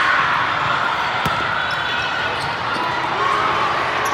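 Busy volleyball hall: a steady din of many players and spectators talking and calling, with a single sharp ball hit about a second in.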